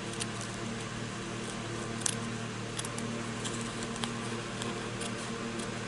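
Small detail scissors snipping through black felt: a few faint, sharp clicks of the blades, clearest about two and four seconds in, over a steady low hum.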